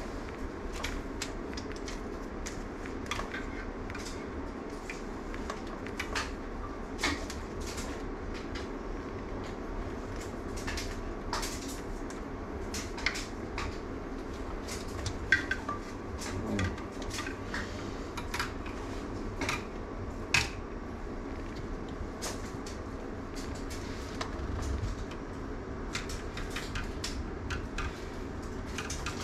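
Irregular light clinks and taps, a few of them sharper, scattered over a steady low hum of room ventilation.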